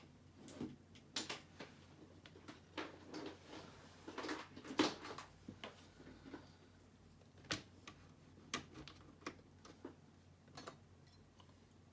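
Irregular light clicks and taps of small laptop parts being handled, a few strokes bunched together, the loudest a little under five seconds in.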